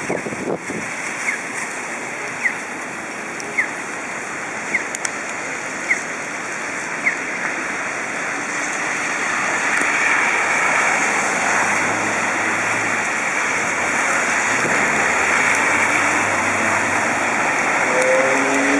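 Steady rain and the hiss of car tyres through water on a wet street. A short high chirp repeats about once a second for the first seven seconds, and about nine seconds in the hiss swells as vehicles drive past.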